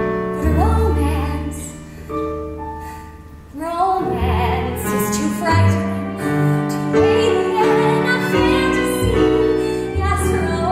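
Live musical-theatre song: a small band of keyboard, bass, violin and guitar plays, and a woman sings long held notes with vibrato over it.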